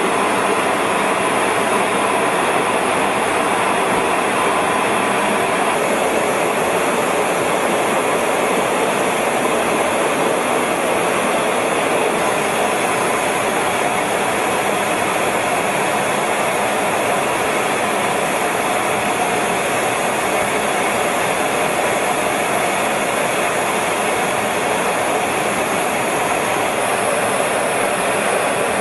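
Steady noise inside a fighter jet's cockpit in flight: engine and rushing airflow as an even, unbroken wash with a faint steady hum.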